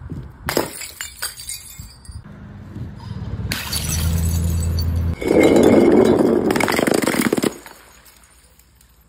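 Paint-filled glass bottles smashing on concrete: a sharp crash about half a second in with shards clinking after it, then a longer, loud rush of breaking glass and splashing paint that stops suddenly about three-quarters of the way through.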